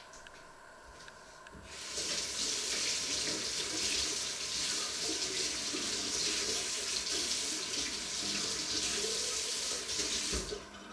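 Kitchen tap running into a sink. It is turned on about two seconds in and shut off shortly before the end.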